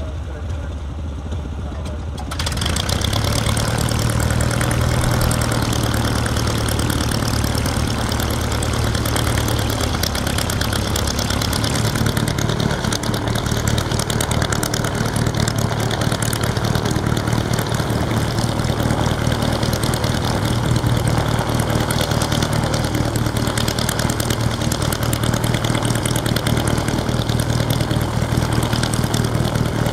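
Aero engine of an S.E.5a biplane, heard at close range, coming in loudly about two seconds in and then running steadily on the ground. A lower engine hum is already running underneath from the start.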